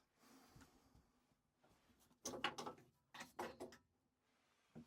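A few light clicks and knocks from the boiler's plastic sump parts being handled, in two short clusters a little after two seconds and past three seconds.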